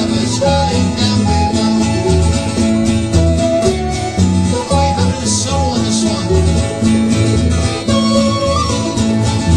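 A folk band playing a sea shanty.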